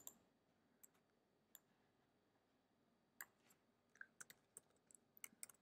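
Near silence with faint computer keyboard and mouse clicks: a few separate clicks in the first half, then a quick run of keystrokes over the last second and a half.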